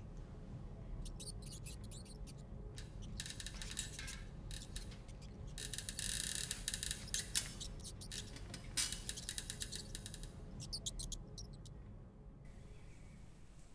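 Dry food crumbled between fingers, crackling in uneven clusters that are densest about six seconds in and stop about twelve seconds in, over a low steady hum.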